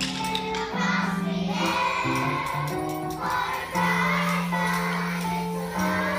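Children's choir singing over instrumental accompaniment with held notes, with light percussion shaken or tapped along.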